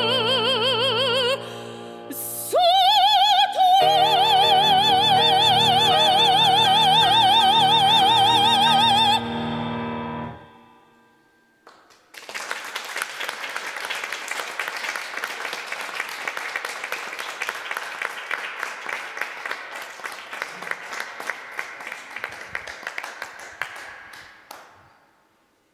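A female operatic singer with grand piano finishes a piece, ending on a long high note with wide vibrato over piano chords. After a short pause, applause runs for about twelve seconds and dies away.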